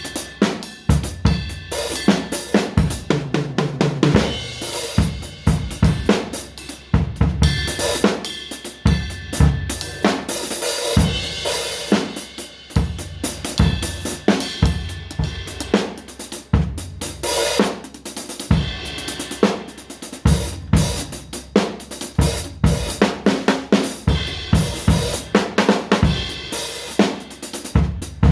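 Drum kit played in an improvised groove: a dense, irregular run of kick drum and snare hits over a continuous wash of cymbals and hi-hat.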